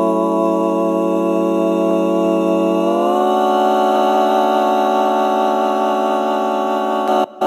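Background music: a long held, droning note that steps up in pitch about three seconds in. Near the end it breaks into a quick rhythmic pulsing of about three beats a second.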